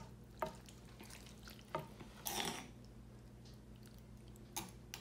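Hands stirring and squishing raw chicken pieces in marinade in a ceramic bowl, with a few light clicks of a metal spoon against the bowl.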